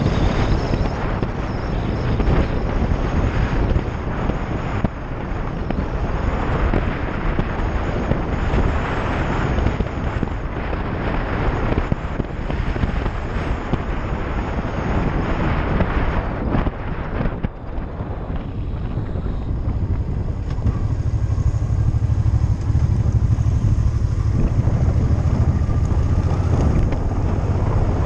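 Wind rushing over the microphone of a motorcycle-mounted camera as the motorcycle rides along, its engine running underneath. About two-thirds of the way through the rush of wind drops and a louder low engine rumble takes over.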